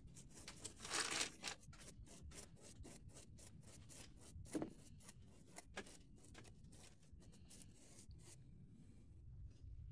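Wide flat paintbrush scrubbing back and forth over a card model platform surface, a run of short dry rubbing strokes, blending pastel-chalk weathering powders into the card. A few strokes are louder, about a second in and again about four and a half seconds in.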